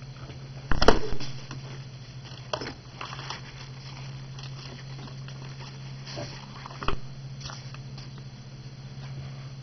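A few soft knocks and rustles as a cat shifts and stretches against the desk close to the microphone, the loudest about a second in, over a steady low hum.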